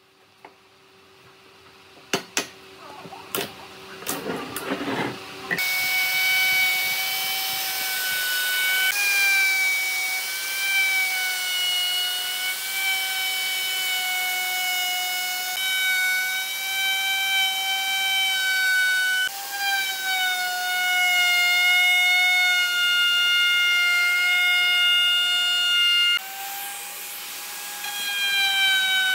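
A few sharp knocks, then an electric router runs with a loud, steady high whine as it trims the edge of a resin-and-wood tabletop. Its pitch shifts slightly several times.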